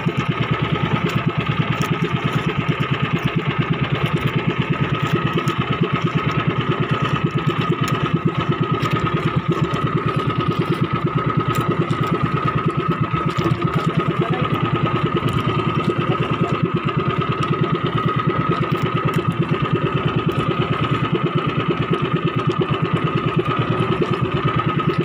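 Small engine of a motorised outrigger fishing boat running steadily under way, a fast even putter with a constant whine above it.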